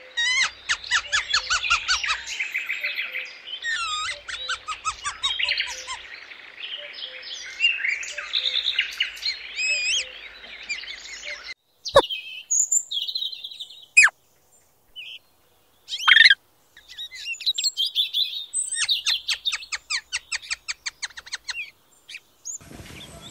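Small birds singing and chirping in rapid high trills and chirp series. Around the middle the chorus breaks off into a few single sharp calls with short near-silent gaps, and then the rapid chirping starts up again.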